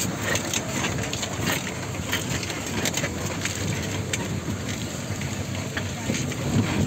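Four-wheel-drive vehicle driving slowly over a rough dirt and mud track: tyres crunching on soil and stones with frequent small cracks and pops, and the engine running low underneath.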